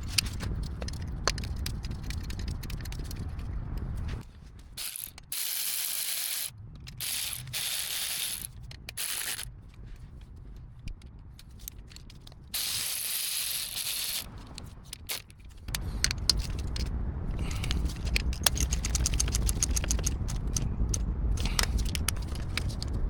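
Ratchet wrench clicking in several runs of a second or two each while the AC compressor's mounting bolts are run back in and tightened, with a faster, finer ticking near the end and low rumbling handling noise between the runs.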